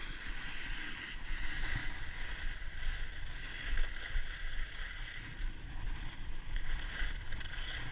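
Skis sliding and scraping over hard-packed snow in a continuous hiss during a downhill run, with wind rumbling on the camera's microphone.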